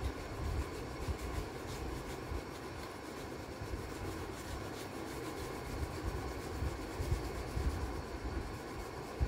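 Yellow oil pastel rubbed back and forth across sketchbook paper in light strokes, a dry scratchy scraping over a low rumble.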